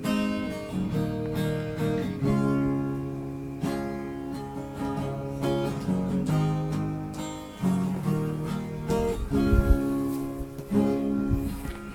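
Acoustic guitar playing a slow instrumental intro of chords, each chord ringing on for a moment before the next. There is a low thump about nine seconds in and another near the end.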